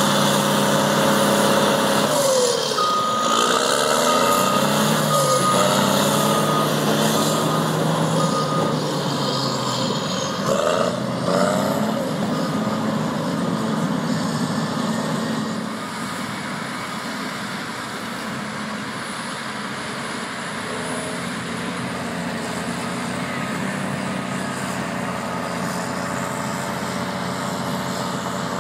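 Crawler bulldozers' diesel engines running and revving as they push sand. A reversing alarm beeps steadily, a little more than once a second, from about three seconds in until about halfway through. The engines grow quieter in the second half.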